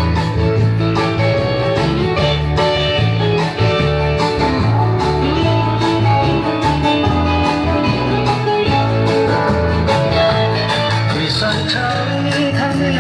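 Music with guitar and a steady bass line.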